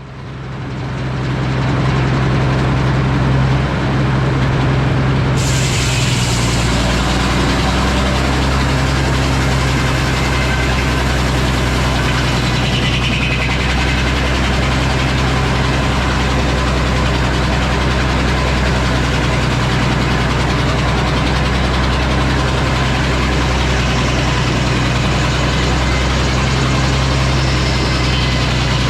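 Sawmill engine running steadily at a constant speed, fading up over the first two seconds; about five seconds in, a brighter hissing noise joins it and continues.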